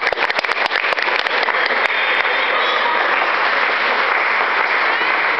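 Spectators applauding. Dense individual claps in the first two seconds blend into continuous applause.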